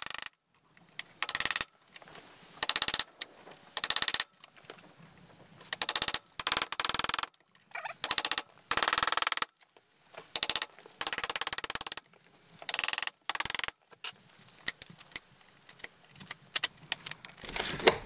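Pocket knife blade used as a chisel, scraping and gouging out a latch hole in a plywood filler strip. It comes as about a dozen short rasping strokes, each a rapid chatter of the blade on the wood, with short pauses between them.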